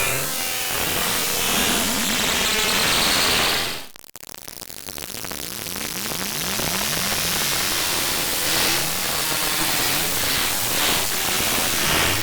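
Harsh synthesized noise from ArtMatic: a dense static-like hiss with warbling, sweeping tones running through it. It cuts out abruptly about four seconds in, then swells back up over the next two seconds.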